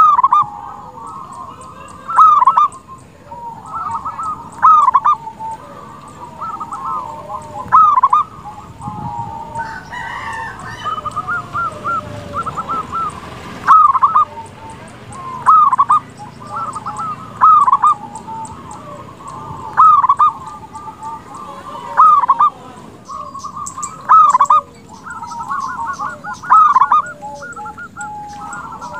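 Zebra dove (perkutut) singing its cooing song over and over: a loud phrase about every two seconds, with quieter, rapid trilled coos between.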